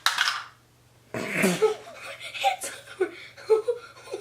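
People laughing and giggling in short, choppy bursts, after a brief breathy burst at the start.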